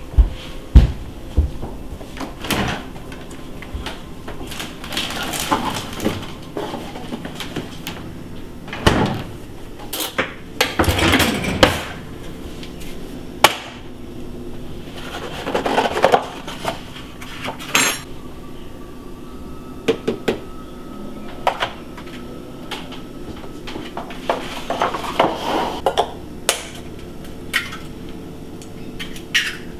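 Kitchen clatter: irregular knocks and clinks of a knife and spoon against a stainless steel mixing bowl and the countertop, with eggs cracked on the bowl's rim. The knocks come a second or several apart, with a few longer scraping stretches between them.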